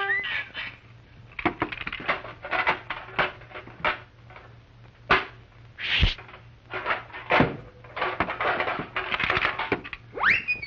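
Cartoon sound effects of a wheeled sweeping contraption brushing the street: a run of irregular scraping, scrubbing and clattering strokes, some short and some drawn out. Near the end comes a quick whistle that swoops up and falls away.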